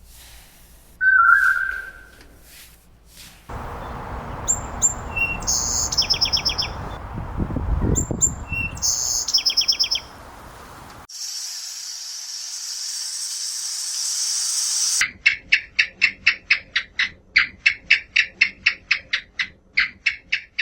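Birds chirping and trilling in a run of short clips: high chirps and trills over background noise, a steady high hiss for a few seconds, then a fast series of short repeated calls, about five a second.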